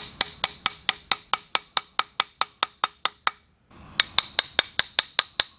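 Rapid, even hammer taps on a brass punch set into a carburetor body, about four a second, with a short pause a little past halfway.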